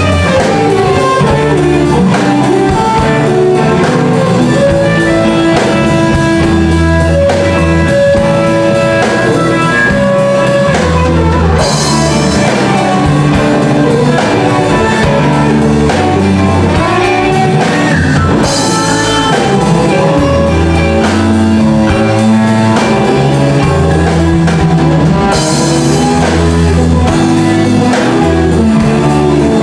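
Live blues band playing: a Telecaster-style electric guitar playing a lead line over bass guitar and drum kit, with the cymbals coming in louder three times.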